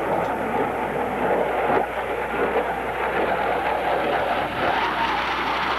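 Jet noise from a McDonnell Douglas F-4 Phantom II flying a low attack pass, its twin J79 turbojets heard as a steady, even rush that neither swells nor fades.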